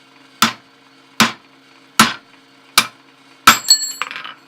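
A hammer striking a 3/8 inch steel opener drift to drive it into a slot-punched hole in 5/8 inch square stock, opening the hole. Five sharp blows fall about 0.8 s apart, and the last one rings briefly.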